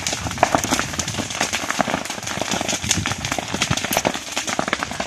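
Dry grass and brush burning, crackling and popping in a rapid, irregular stream of sharp snaps.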